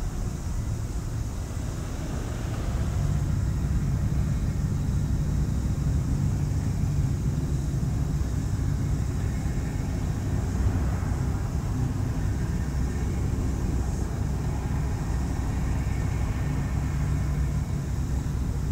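Low, steady rumble of the cruise ship Celebrity Solstice under way, growing a little louder about three seconds in.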